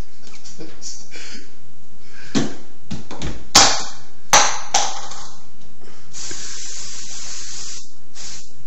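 A few sharp knocks, then cooking spray hissing steadily from its can for about two seconds.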